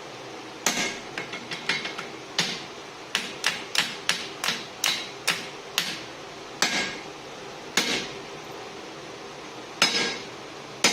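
Hand hammer striking steel at the anvil: about twenty ringing blows, first a quick irregular run and then a few spaced-out single strikes. This is typical of driving a punch through the forklift-fork steel to knock the slug out of the hammer eye.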